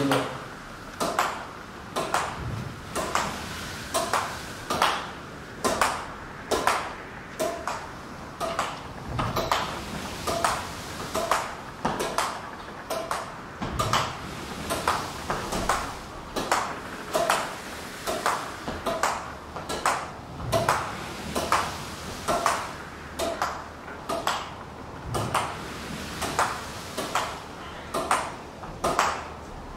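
Badminton racket striking a shuttlecock over and over in a steady solo rally against a wall, with a short pinging hit about once a second.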